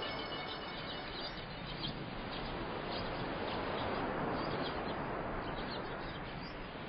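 Small birds chirping in short, quickly repeated calls over a steady rushing hiss.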